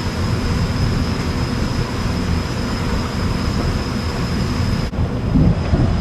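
Steam cleaner running in the shop: a steady loud hiss and machine drone with a thin constant high whine. The high part drops away suddenly about five seconds in.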